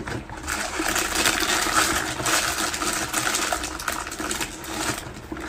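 Plastic wrapper crinkling and rustling as hands rummage for food inside a handbag: a dense, irregular run of crackles that stops about five seconds in.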